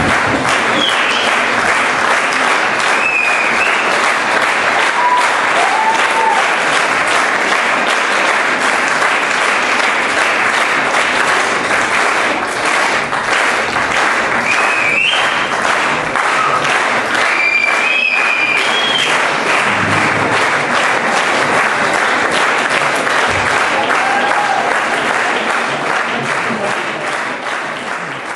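Audience applauding steadily, with a few short whoops over the clapping, dying down near the end.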